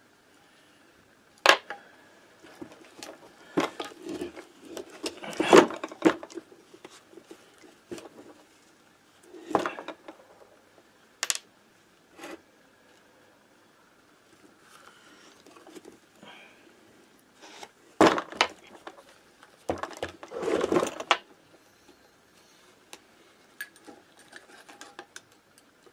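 Metal clutch parts of a Minarelli AM6 moped engine clinking and clattering as they are handled and set down on a wooden bench: scattered sharp clinks, with the busiest clusters about five seconds in, at about eighteen seconds and around twenty to twenty-one seconds.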